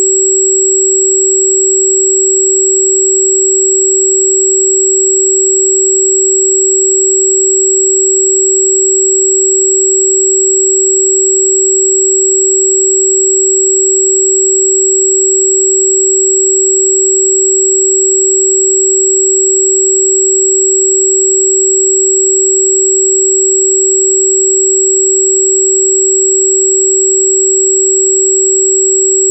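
A steady, unchanging electronic sine tone at about 383 Hz (382.605 Hz), the frequency given for Di Gu Pi (wolfberry root bark).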